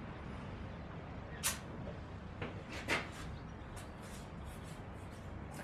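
Quiet room tone with a steady low hum and a few faint, brief clicks, the clearest about one and a half and three seconds in.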